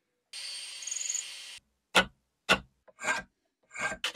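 Abrasive rubbing on the wooden handle of an antique hand saw: about a second of continuous scraping, then four separate short strokes roughly half a second apart.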